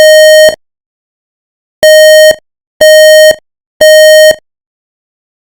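Building fire alarm sounding the temporal-three evacuation pattern: a buzzy half-second tone once, then, after a pause of just over a second, three more tones a second apart. Very loud.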